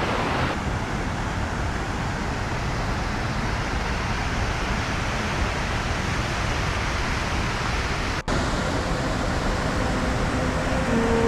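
Steady rushing noise of falling water, with a brief sharp cut in the sound about eight seconds in.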